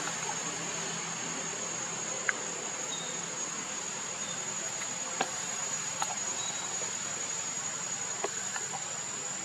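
Steady high-pitched drone of insects, with a few short sharp clicks scattered through it.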